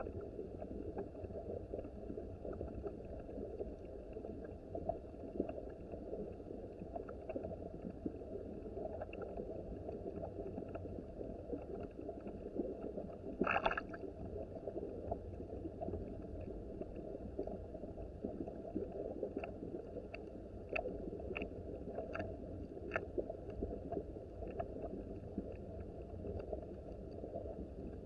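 Small mountain creek flowing and burbling steadily, with scattered faint clicks and one brief louder sound about halfway through.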